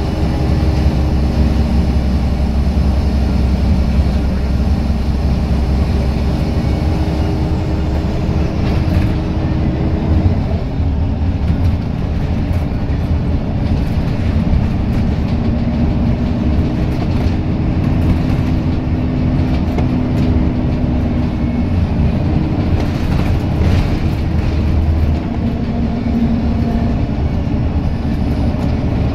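Scania L94UB Wright Solar bus's 9-litre diesel engine working hard under acceleration, a steady, loud, low-pitched rumble heard from inside the saloon. The engine note shifts about ten seconds in and again near the end.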